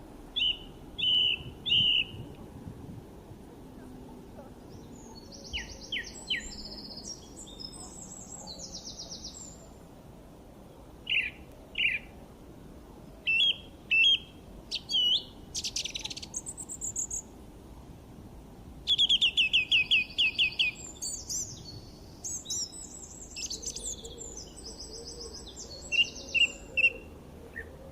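Songbirds chirping and singing in scattered short phrases of bright chirps, with a fast trill of quickly repeated notes about two-thirds of the way through, over a steady low background noise.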